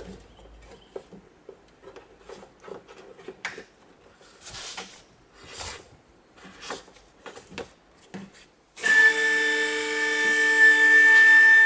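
Rustling, scraping and light knocks of cable and hands working inside a car's boot trim. About nine seconds in, the electric pump motor of a two-post vehicle lift starts with a loud, steady whine that holds until it cuts off sharply.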